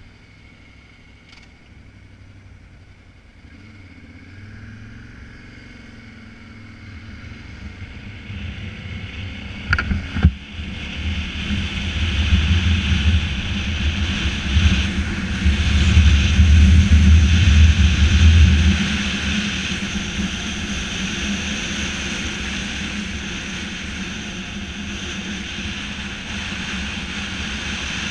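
Motorcycle riding on a road, with the engine's rumble and the rush of wind building as it picks up speed. A sharp knock comes about ten seconds in. The engine is loudest for several seconds in the middle, then it settles to a steady cruising drone.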